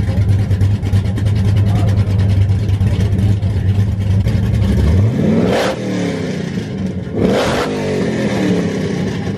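Straight-piped Chevrolet Camaro ZL1's supercharged V8 idling loud and steady, then revved twice, about five and seven seconds in. Each rev climbs sharply and drops straight back to idle.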